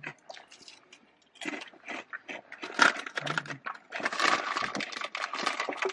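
Crinkling and crunching of snack food and its packaging close to the microphone: scattered sharp cracks, thickening into a dense crackle about four seconds in.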